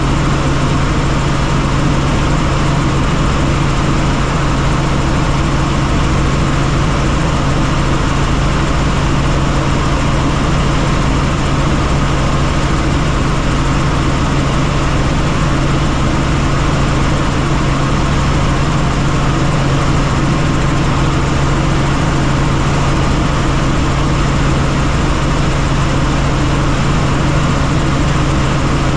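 Helicopter in flight, heard from on board: the rotor and engine make a loud, unchanging drone with a strong constant low hum.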